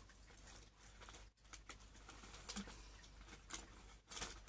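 Faint rustling and crinkling of ribbon and wrapping paper being handled as a ribbon is pulled around a wrapped present, in small irregular crackles with a couple of louder ones near the end.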